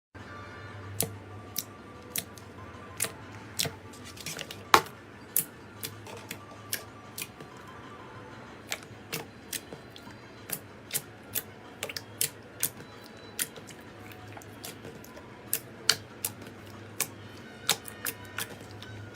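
Slime being handled for ASMR, making sharp, irregular clicks and crackles about one or two a second over a low steady hum.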